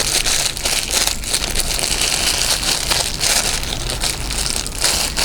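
Crinkling and rustling of packaging, with small irregular clicks, as a small box is opened by hand and the charging cable is taken out.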